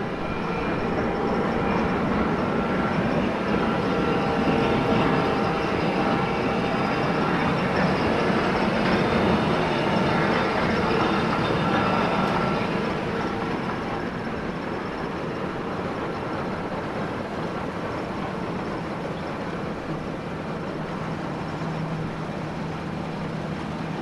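John Deere T670i combine harvester running while cutting barley: a steady mechanical drone of engine and threshing gear, with a few steady whining tones on top. It is louder for the first half, then eases off a little.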